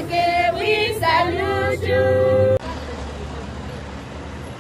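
Girls' voices singing together, held notes, cut off abruptly about two and a half seconds in. A steady, quieter low rumble of road traffic follows, with armoured military vehicles driving past.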